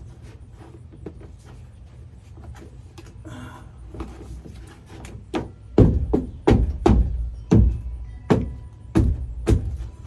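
A brief rustle, then a run of about eight loud, irregularly spaced knocks against the body of a Ford E-150 van from inside the cargo area, each with a short booming ring that falls away.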